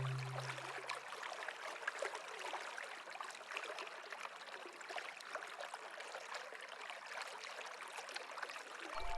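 Running water trickling steadily, an even rush with many small splashes. A low background music note dies away in the first second.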